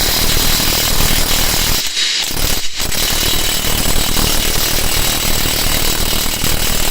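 Makita TW001G 40V cordless high-torque impact wrench hammering in a rapid, continuous rattle, with two brief breaks about two seconds in.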